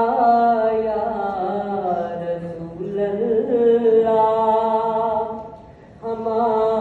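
A boy singing a naat into a microphone in long held notes that bend up and down, with a short break for breath about five and a half seconds in before the next line begins.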